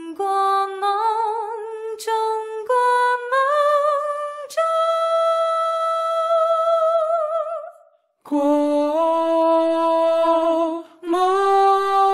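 Music: the song's wordless closing melody, slow long-held notes with a wavering vibrato, breaking off briefly about eight seconds in before a final held note.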